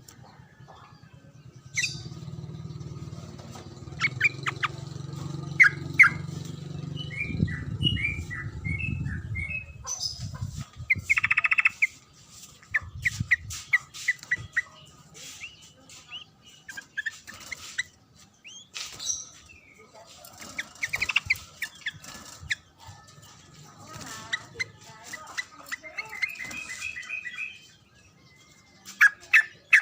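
Songbird chirping and calling in quick, varied short notes and trills, typical of tutor song for a yellow-vented bulbul (trucukan). A low hum runs under the first third.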